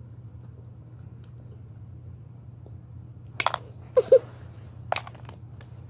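Handling noise over a steady low hum: a few sharp clicks and knocks close to the microphone, in two quick pairs from about three and a half to four seconds in and one more near five seconds.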